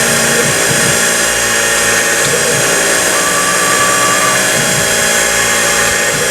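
CNC milling machine spindle running steadily with a multi-tone whine while drilling a row of small holes in a jig part; a higher whine comes in for about a second around the middle.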